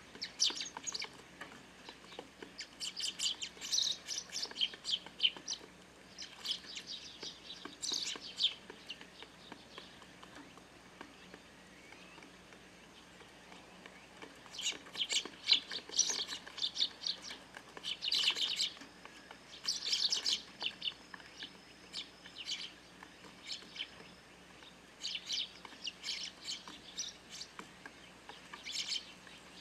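A flock of Eurasian tree sparrows chirping in bursts of rapid short chirps, with a lull of a few seconds near the middle.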